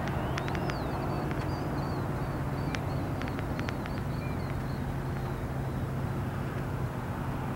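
Steady low rumble of distant road traffic, with faint, brief high chirps of small birds scattered through the first half.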